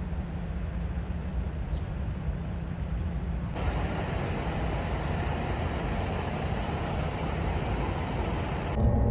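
Steady low rumble of vehicles and traffic, with no voices. It turns louder and brighter about three and a half seconds in, as the scene moves to a parking area with a coach and lorries.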